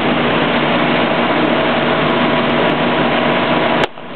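A steady machine drone with a few held tones, then near the end a single sharp pop as a long fluorescent tube bursts on impact against a man's chest. After the pop the drone drops away suddenly.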